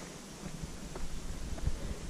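Footsteps on a dirt path covered in dry fallen leaves, a few soft footfalls with leaf rustle, over a low rumble of wind on the microphone.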